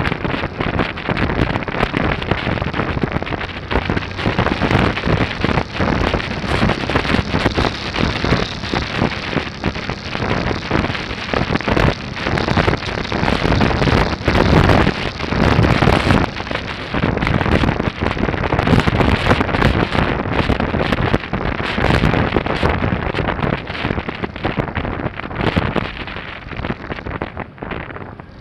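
Wind buffeting the microphone of a camera mounted on a moving motorcycle, a dense crackling rush mixed with the motorcycle's running and road noise. It eases a little near the end.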